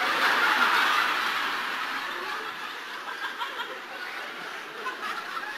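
Audience laughing, loudest at the start and dying away over the next few seconds to scattered chuckles.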